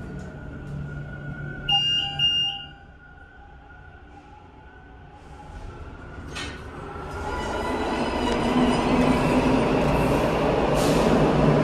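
Elevator chime sounds twice, then the doors open onto the platform and the steady rumble of a Toronto subway train swells up and holds.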